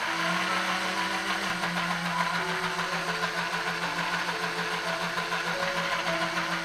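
Small DC motor of a homemade soda-can mini blender running steadily with a low, slightly pulsing hum. It stops near the end as it is switched off.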